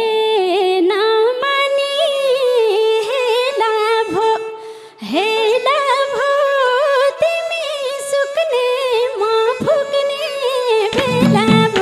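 A woman singing a Nepali dohori folk verse in two ornamented, wavering phrases, with a short breath between them about halfway through, over a steady held note. The band's low instruments come back in near the end.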